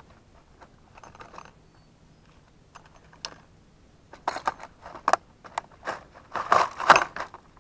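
Clear plastic tackle box being handled: a few faint clicks, then from about halfway through a quick run of sharp plastic clicks and rattles as the lid and latches are worked and the lures shift inside.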